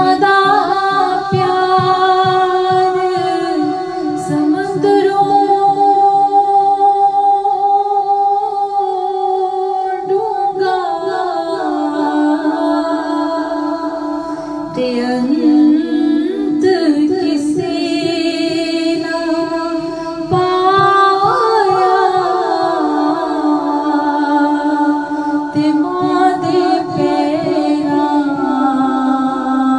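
A voice singing an Urdu hamd, a devotional song in praise of God, with long held, wavering notes.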